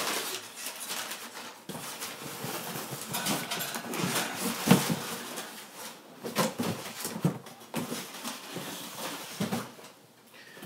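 Cardboard handling: crumpled packing paper rustling and a cardboard box scraping and bumping as a boxed RC truck is pulled out of a shipping carton, with one sharp knock a little under halfway through.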